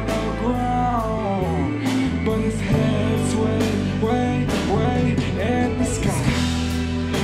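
Live band music: electric guitar over deep held bass notes and drums with cymbal hits, with a voice singing over it.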